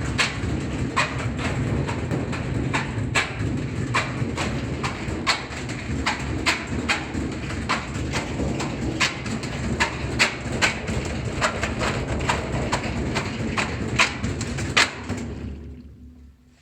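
2005 Whirlpool washing machine on high spin with an unbalanced load: a steady low rumble broken by repeated sharp knocks, roughly one or two a second, as the off-balance load bangs around. Near the end the knocking stops and the rumble dies away.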